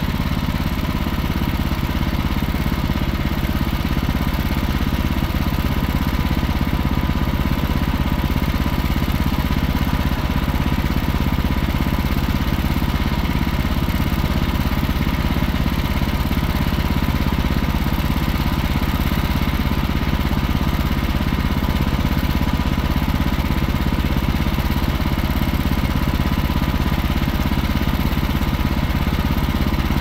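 Wood-Mizer LT15 portable sawmill's gas engine running steadily at an even speed, the saw head parked and not cutting.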